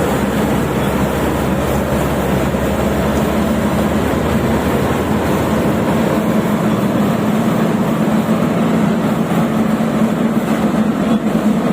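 Rice combine harvester running steadily during harvest: a loud, continuous engine and machinery drone with a steady hum.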